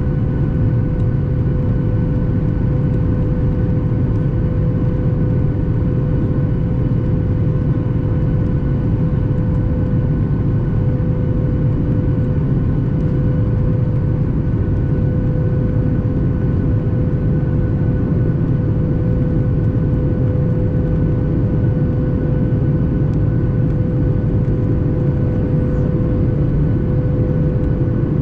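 Steady cabin drone inside a Boeing 737 MAX 8: its CFM LEAP-1B jet engines and airflow make an even, unbroken rumble with a constant mid-pitched hum tone running through it.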